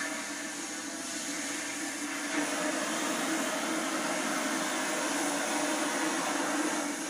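Gas torch flame hissing steadily as it burns holes through 1-inch steel tubing, getting louder about two and a half seconds in.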